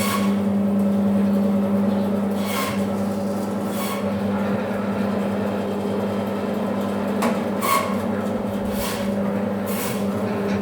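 Levent Vinç bone-cutting band saw running with a steady electric hum, with several short, harsher bursts over it, about every one to four seconds.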